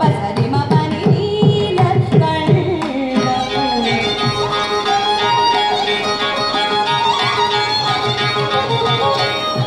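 Carnatic music: a violin plays a bending melody over mridangam strokes that thin out after about three seconds, with a morsing (jaw harp) twanging along.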